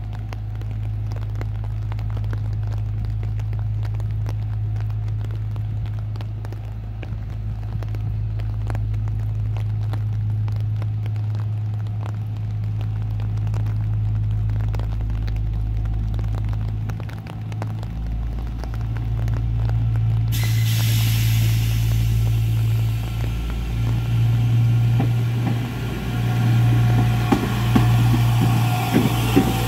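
PESA 620M diesel railbus coming in along the platform track, its diesel engine a steady low drone that grows louder as it draws near. In the last few seconds, as it passes close, clicks and noise of the wheels on the rails join in.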